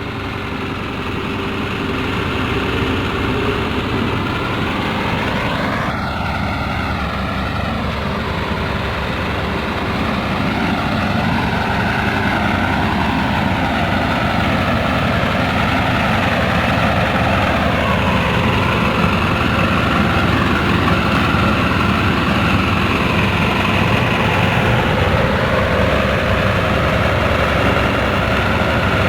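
Heavy diesel engine of construction machinery running steadily, its pitch rising and falling several times as it works.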